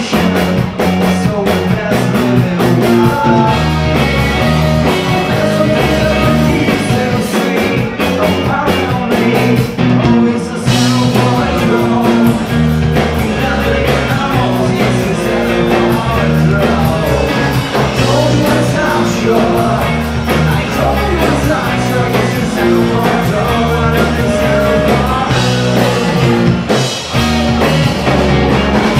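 Live rock band playing at full volume: electric guitars, bass guitar and drum kit with a steady beat.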